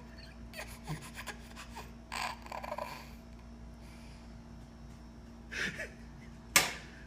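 A few sharp clicks from a wall light switch being flicked, mixed with a toddler's short breathy gasps, over a steady low electrical hum.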